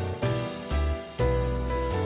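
Instrumental background music, with bass notes changing about every half second under held chords.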